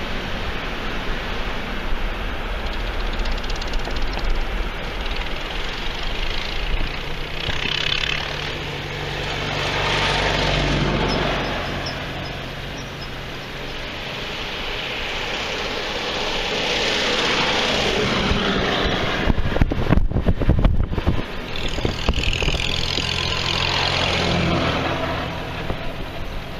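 Farm tractor engines passing one after another, each rising and falling as it draws near and goes by, about three passes in all. Wind buffets the microphone briefly a little past the middle.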